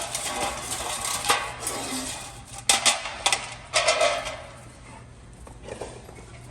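Metal clinking and rattling in a run of sharp clicks, busiest over the first four seconds, then quieter.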